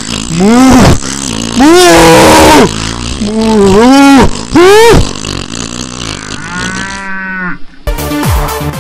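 Loud, drawn-out vocal cries, several in a row, each swooping up and then down in pitch, with a longer wavering cry near the end. Just before the end it cuts to electronic music with a thumping beat.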